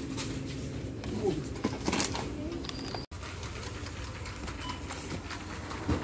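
Supermarket ambience: a steady low hum with a few faint short squeaks and light clicks of packaging being handled, broken by a brief dropout about three seconds in.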